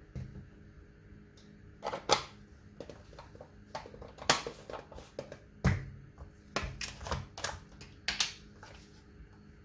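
Spice containers clicking and tapping as ground spices are shaken out onto a ceramic plate: a string of sharp clicks and knocks, with one heavier thump about halfway through.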